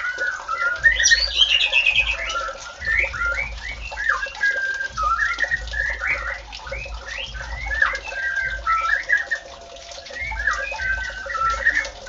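White-rumped shama (murai batu) in full song: a fast, unbroken run of varied whistled and chattering phrases, with a brighter, higher run about a second in.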